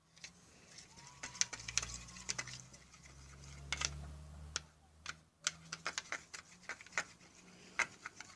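Glue and water being stirred in a container, the stirring utensil giving irregular light clicks and taps against the sides and bottom.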